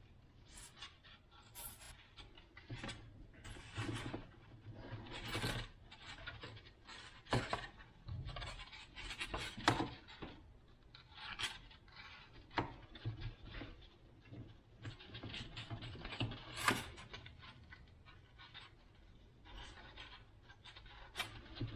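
Irregular scrapes, rustles and sharp clicks of hands working a Coroplast (corrugated plastic) fuselage, pressing pins in to hold a freshly glued part.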